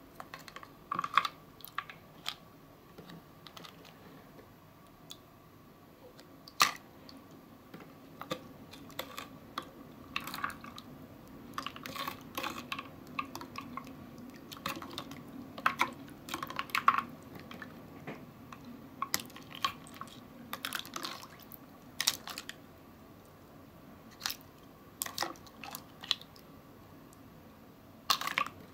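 Small plastic scoop net clicking and knocking against a plastic bowl and floating plastic toy turtles as it is swished through water: irregular sharp taps, some much louder than others, over light sloshing.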